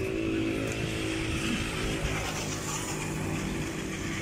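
A motor vehicle engine running steadily, a constant pitched hum that drops a little in pitch near the end.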